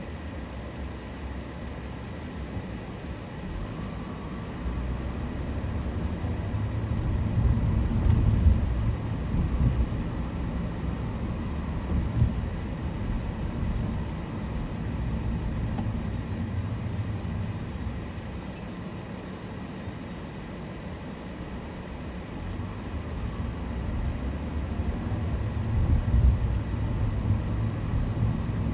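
A car driving: steady low engine and road rumble that swells louder twice, about a quarter of the way in and again near the end.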